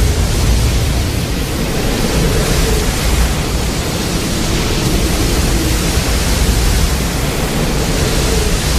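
A sound effect from the TriStar Godzilla film: a loud, steady rushing noise with a faint hum in it.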